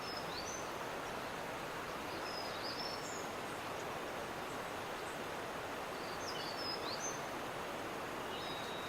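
Outdoor ambience: a steady, even rushing noise, with small birds giving short, high chirps three times, near the start, about two and a half seconds in, and about six and a half seconds in.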